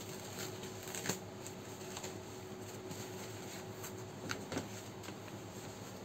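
Plastic and foam packaging rustling and crinkling as a boxed motherboard is pulled out of its wrapping, with a few sharp crackles, about a second in and twice more past the four-second mark, over a faint steady hum.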